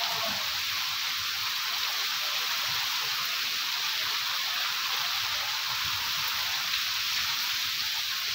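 Heavy rain falling steadily, a constant hiss of rain on the courtyard and roofs.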